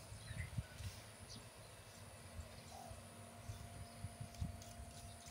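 Wind buffeting the microphone in irregular low thumps, over a faint steady hum and high whine from a distant Airbus A330's jet engines as it rolls out after landing, with a few faint bird chirps.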